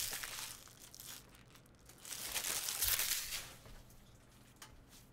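Card-pack wrappers crinkling as they are handled, in two stretches: one dying away in the first second, another about two to three and a half seconds in.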